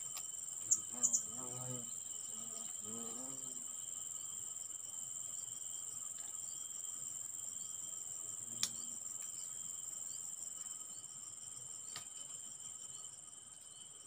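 Insects droning steadily at a high pitch, with a second, lower steady tone beneath, easing off near the end. A few short, sharp high chirps about a second in are the loudest sounds, and a single click comes just past the middle.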